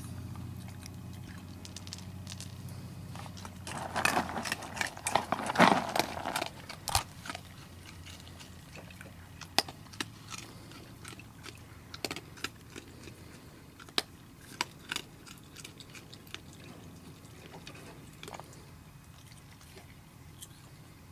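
Young raccoons eating, with crunching and chewing heard as scattered sharp clicks. A louder, denser spell of noise comes about four to six seconds in.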